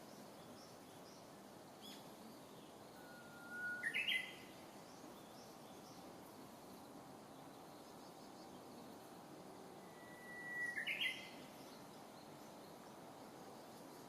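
Japanese bush warbler (uguisu) singing its 'hō-hokekyo' song twice, about six seconds apart: each time a long held whistle that breaks into a quick rising flourish. Fainter high chirps of other birds run in the background.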